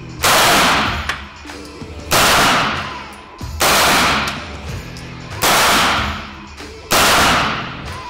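Five suppressed shots from a 9mm MP5K-pattern gun with a three-lug-mounted silencer, fired one at a time about one and a half to two seconds apart. Each shot is a sharp crack followed by about a second of echo fading off the walls of an indoor range.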